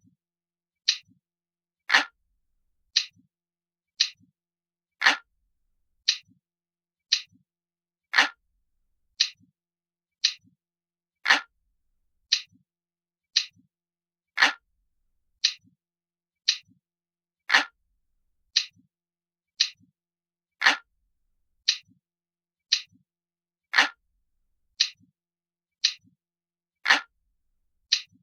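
Analog clock ticking from a looped recording, a crisp tick about once a second with every third tick louder.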